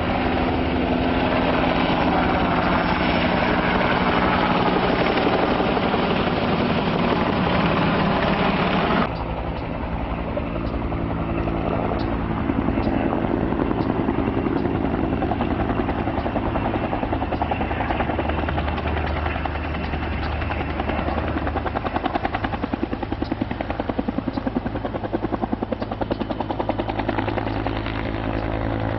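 Firefighting helicopter with a water bucket slung beneath it, its rotor and engines running loud as it flies close overhead. About nine seconds in the sound cuts abruptly to the helicopter farther off, hovering low over a lake to fill the bucket, with a steady beat from the rotor.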